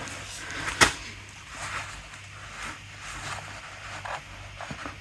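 One sharp click about a second in, followed by faint scattered rubbing and small knocks: hands handling tools and mower parts.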